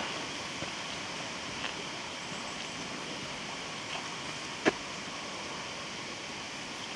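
Strong wind rushing steadily through the forest trees, with a few scattered sharp knocks or snaps; the loudest comes about two-thirds of the way through.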